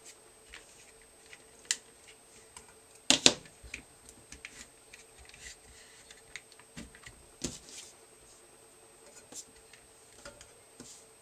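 Scattered light clicks and knocks of a metal helping-hands stand with a magnifying glass being adjusted and moved, and a circuit board being slid under it, with one sharper clack about three seconds in.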